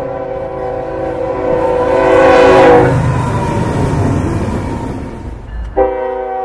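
Nathan K5HL five-chime locomotive air horn sounding a long chord that swells to its loudest and then cuts off about three seconds in, leaving the rumble of the passing train. Just before the end, a fresh horn chord starts abruptly.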